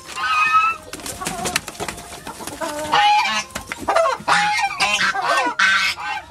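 Chickens squawking and clucking in alarm, a busy run of loud harsh calls that grows denser toward the end, set off by a man lunging at the birds to catch a goose.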